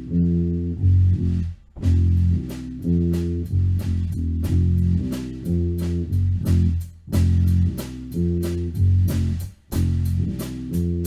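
Heavy rock bass guitar playing a slow, repeating tango-style riff, with a drum kit keeping time in steady cymbal and drum strikes.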